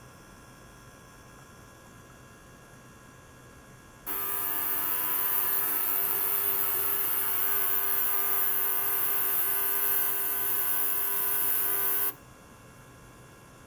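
Ultrasonic cleaning tank switched on about four seconds in: a loud, steady hiss with several steady tones over it, cutting off suddenly about eight seconds later. A faint low hum is heard before and after.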